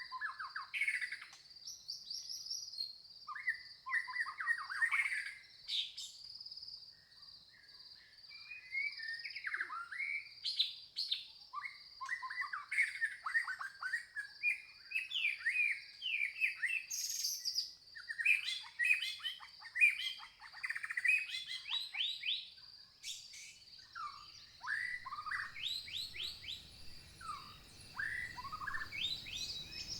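Several songbirds chirping and singing in short, quick phrases over a steady, high-pitched pulsing trill. A low rushing noise comes in near the end.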